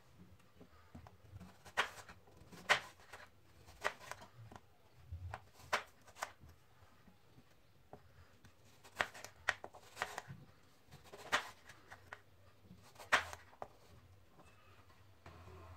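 Kitchen knife slicing apple wedges, the blade knocking sharply on a wooden cutting board about a dozen times at irregular intervals.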